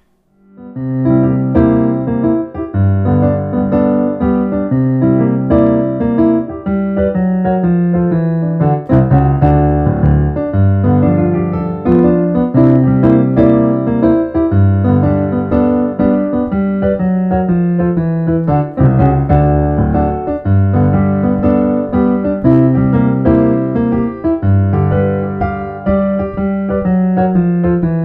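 Piano music with a repeating bass line, starting about a second in.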